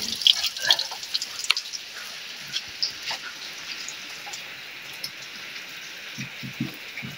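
Water splashing and dripping onto the ground from the opened drain of a Mahindra Commander jeep's radiator, a busy patter of drops that settles after about a second and a half into a steady hiss of running water. The radiator is being drained to flush out soot and rust.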